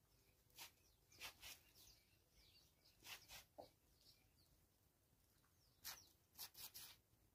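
Near silence broken by faint, short chirps and clicks in small clusters of two to four, a couple of seconds apart, with faint high bird calls between them.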